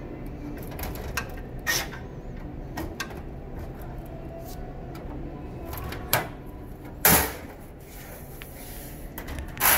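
Lower cover panels of a checkout conveyor counter being unfastened and taken off: scattered small clicks and knocks, with two louder knocks, one about seven seconds in and one near the end.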